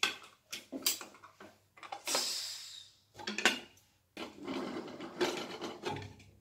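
Aluminium pressure cooker being opened: metal clicks and knocks as the lid and handle are unlocked, a short hiss about two seconds in, then the lid scraping against the rim as it is worked loose and lifted out.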